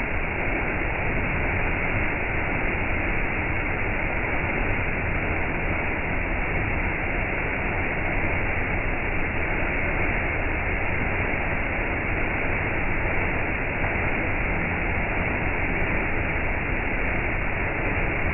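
Small waterfall pouring over a rock ledge into a shallow pool: a steady, even rush of falling water.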